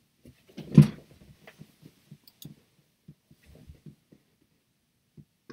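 A loud bump about a second in, then a string of soft, irregular low thuds: a person knocking against the desk and microphone while getting up, then stepping away from the chair.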